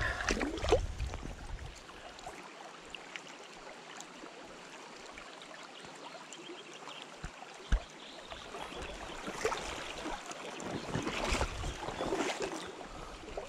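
Splashing in shallow river water as a chub is released by hand, then a steady wash of flowing river water, with a single sharp click near the middle.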